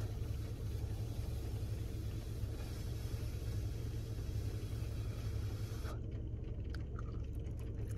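Steady low rumble of a car's engine idling, heard from inside the cabin, with a broad hiss over it that stops suddenly about six seconds in. A few faint small clicks follow near the end.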